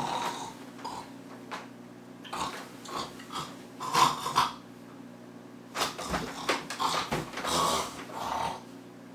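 A man imitating snoring: irregular spurts of rough, rasping breath noise, some short and one long stretch near the end.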